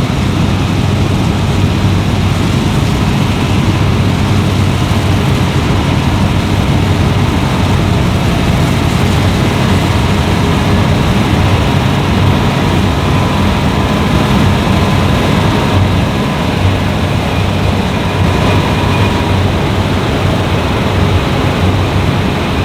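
Fendt Ideal 10T combine harvester running steadily while harvesting wheat, a constant low engine and machinery drone with no change in pitch.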